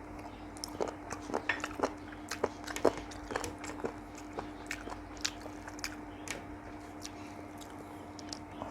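Close-up mouth sounds of a person eating: wet chewing and lip smacks in quick clicks, busiest in the first half and sparser after, over a steady low hum.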